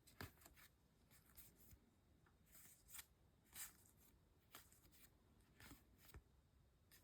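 Faint, scattered rustles and light clicks of trading cards being slid and flipped by hand, about a dozen short soft sounds over quiet room tone.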